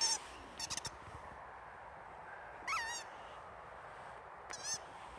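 Rubber squeaky dog toys, a yellow rubber chicken and a squeaky duck, squeaking as two boxer dogs bite down on them: a few short squeaks at the start and about a second in, a longer squeak about three seconds in whose pitch rises and falls, and another near the end.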